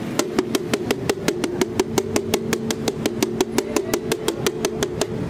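Metal spatula rapidly chopping and beating minced meat on a large flat metal tawa griddle: a fast, even clatter of about six metallic strikes a second over a steady ringing tone, stopping just before the end.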